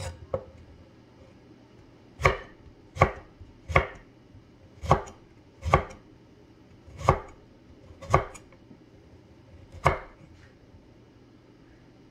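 Kitchen knife chopping carrot into strips on a wooden cutting board. Two light knocks at the start are followed by eight firm chops, each a sharp knock of the blade on the board, roughly one a second and not quite evenly spaced.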